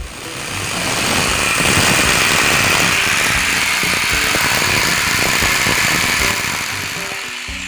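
Electric rotary hammer drill boring into a wall: a loud, steady hammering grind that builds over the first second and eases off about six seconds in.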